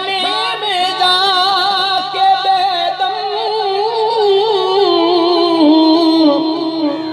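Sufi devotional song: a singer draws out one long, wavering note with vibrato over musical accompaniment, the melody sliding lower in the second half.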